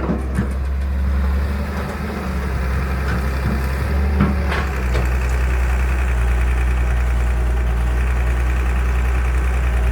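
Excavator's diesel engine running steadily, with a short clank about four seconds in and the deep engine note growing stronger just after.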